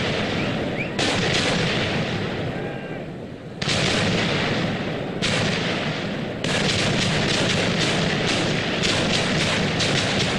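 Fireworks display: aerial shells and crackers going off in a dense, continuous barrage of rapid bangs. It thins out briefly about two to three seconds in, then comes back suddenly and loudly just before the four-second mark.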